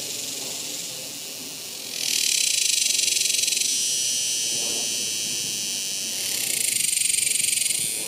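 Cicadas calling with a high, steady buzz. It grows loud about two seconds in, eases off, then swells again near the end before dropping away.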